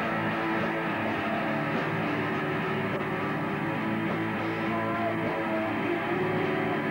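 Live rock band playing through guitar amplifiers, with electric guitar and a singer's voice, recorded from the room.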